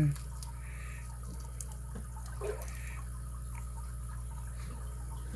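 Faint small clicks and light rustling of small lock parts being handled, over a steady low hum.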